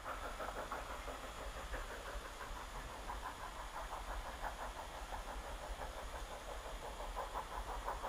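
Exhaust of the small Henschel steam locomotive HC 5 working a train at a distance: a fast, even chuffing beat over a steady hiss.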